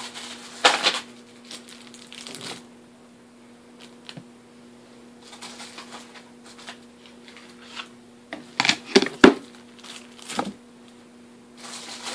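Small packaged items being handled and set down on a tabletop: plastic and card packaging crinkling and rustling, with sharp taps and clicks. The loudest is a quick cluster of knocks about nine seconds in.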